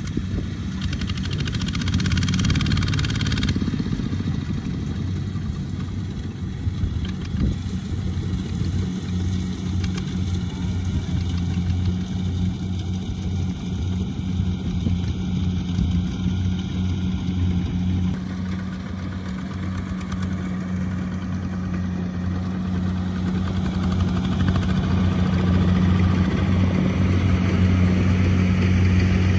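Single-cylinder diesel engine of a Kubota ZT155 Plus two-wheel walking tractor, running steadily while it pulls a trailer loaded with rice sacks. Its tone changes about two-thirds of the way through, and it grows slightly louder near the end.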